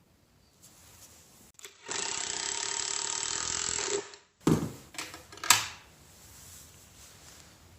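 A power tool running steadily for about two seconds, then two sharp knocks about a second apart.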